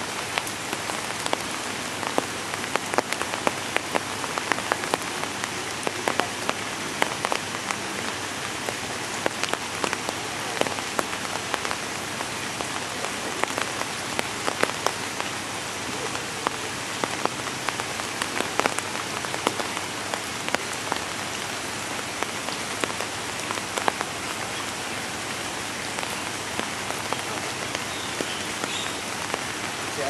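Steady rain falling on shallow standing water and wet ground, a constant hiss with many individual drops hitting sharply.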